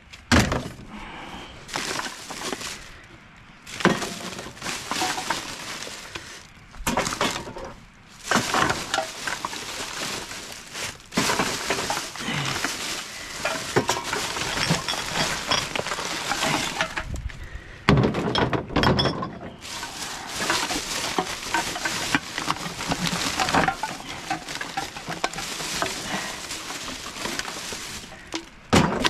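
Rummaging through a dumpster: rubbish shifting and scraping, with frequent clinks, clatters and knocks of hard items striking each other.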